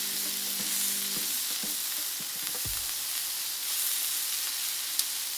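Steaks searing on a hot steel flat-top griddle, held on their edges with tongs: a steady frying sizzle, with a single light click near the end.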